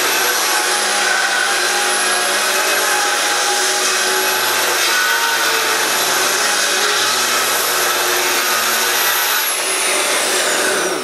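A Festool plunge-cut track saw rips a varnished pine board along its guide rail, running steadily with a dust extractor hooked up. Its high whine falls in pitch near the end.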